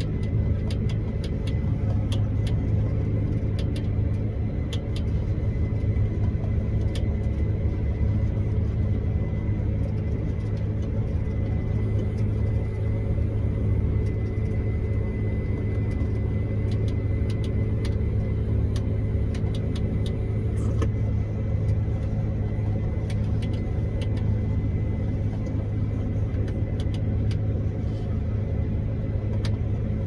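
Combine harvester running steadily, heard from inside its cab: a constant low drone with a thin steady high whine above it and scattered light ticks.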